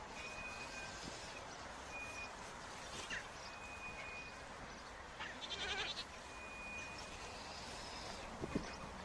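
Sheep or goats of a grazing flock bleating, one wavering bleat about halfway through, over a steady outdoor hiss; short, clear high tones come and go throughout.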